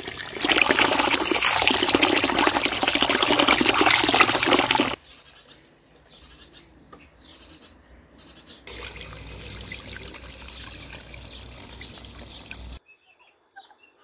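Water running from a garden tap into a plastic basin and splashing over rice being washed by hand; it is loud and steady, then cuts off suddenly about five seconds in, leaving much quieter background noise.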